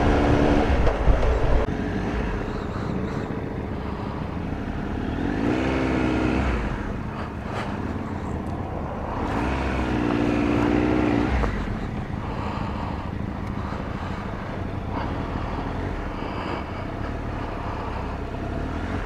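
Triumph Tiger Explorer 1200's three-cylinder engine under way, with steady wind and road noise. The engine note climbs and dips twice, about five and ten seconds in, as the bike accelerates.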